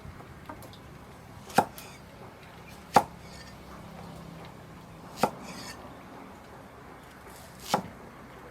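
A knife chopping on a cutting board in four single, spaced strokes, each a sharp knock a second or two apart.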